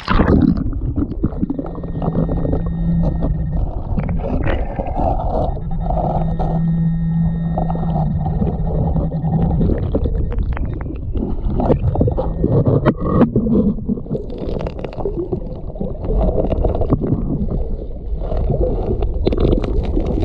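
Muffled underwater rushing and rumbling of creek water on a submerged camera, with knocks and scrapes of rocks being shifted on the creek bed. A steady buzzing tone comes and goes twice, for about two seconds and then about four.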